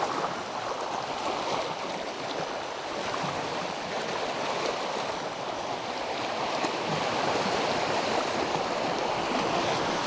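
Small waves washing against shoreline rocks, a steady rushing of water.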